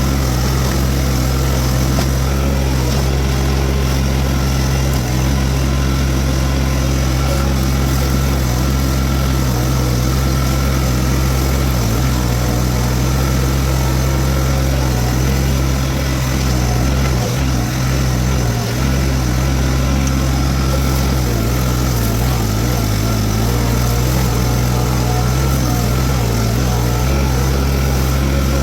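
Toro TX1000 mini skid steer's diesel engine running steadily under load while it drives a Virnig V20 brush mower, with a couple of brief dips a little past halfway.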